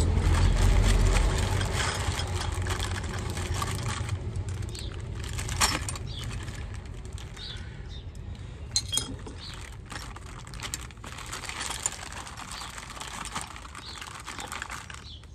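Small steel brake-caliper hardware (new pins and a spring from a fitting kit) clinking and rustling in a plastic bag as it is sorted by hand, with a few sharp clinks. A passing vehicle's low rumble fades out over the first few seconds.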